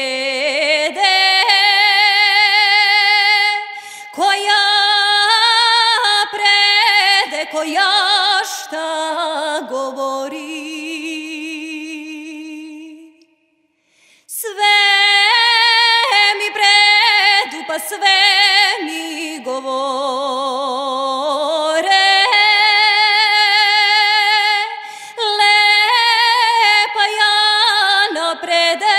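A woman singing a traditional Serbian folk song solo, in long held notes with strong vibrato. The voice breaks off for about a second around the middle, then carries on.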